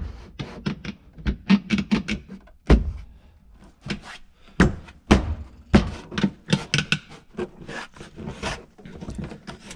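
Ford Festiva's hard plastic interior trim panel being pushed, knocked and fitted into place by hand: an irregular run of clicks and thunks, with the loudest thuds around the middle.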